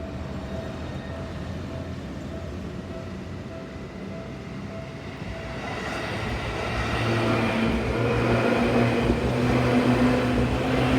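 Yellow Seibu electric commuter train approaching a level crossing and growing steadily louder from about halfway in, with the hum of its motors and wheels on the rails. Before that, the crossing bell is dinging.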